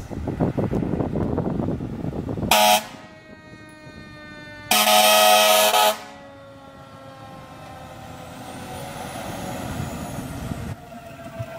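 Pierce fire engine's air horn and Federal Q mechanical siren: a low engine rumble, then a short air horn blast about two and a half seconds in and a longer blast of over a second a couple of seconds later. Through and after the blasts, the Q siren's wail slides slowly down in pitch as it winds down.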